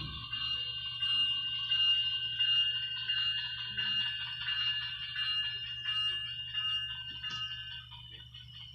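Model diesel locomotive running toward the camera on floor track: a steady, high ringing tone over a low hum, growing fainter near the end.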